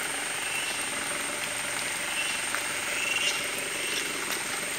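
Off-road jeep's engine idling, heard as a low even hum under a steady high-pitched drone, with short chirps every second or so.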